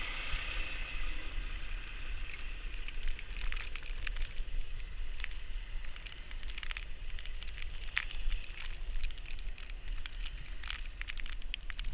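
Irregular crackling and crunching clicks over a steady low wind rumble.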